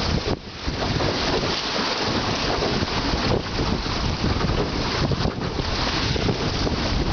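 Wind buffeting the microphone over the rush and splash of choppy water along the hull of a Drascombe Lugger sailing in a 10 to 15 knot breeze. The wind noise dips briefly just after the start.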